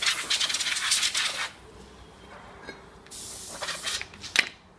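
Compressed-air blow gun hissing as it blasts brake dust off a drum-brake backplate and hub; the blast cuts off after about a second and a half, a second shorter blast follows about three seconds in, and a sharp knock comes near the end.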